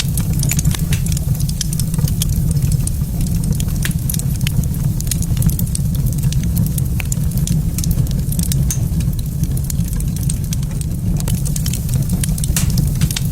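Wood fire burning in a fireplace, crackling with frequent irregular pops and snaps over a steady low rumble.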